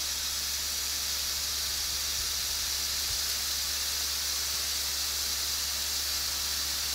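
Water and air hissing steadily out of the open test cocks of a freshly installed reduced-pressure backflow prevention assembly under line pressure, as the air is bled out of the recharged line.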